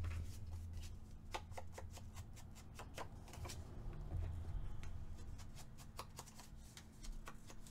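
Quiet, irregular taps and scuffs of a foam ink blending tool dabbed on an ink pad and onto the edge of a paper card, with paper being handled, to ink and age the card's edge.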